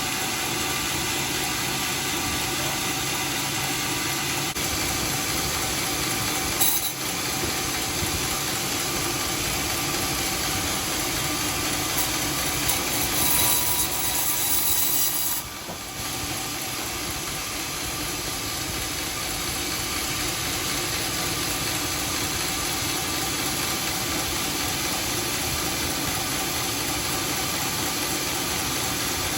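Homemade sawmill running steadily while sawing dry teak, a loud even machine noise throughout. A short sharp sound comes about a third of the way in, and a louder hissing stretch midway cuts off suddenly.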